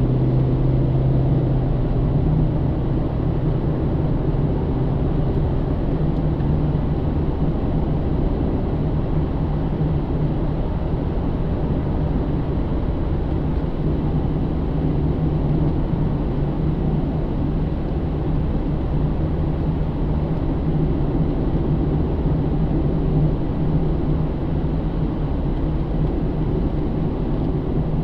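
Inside the cabin of a 2009 Pontiac G8 GT: its 6.0-litre V8 drones steadily under way over low road rumble, the engine note rising slightly about two seconds in, then holding.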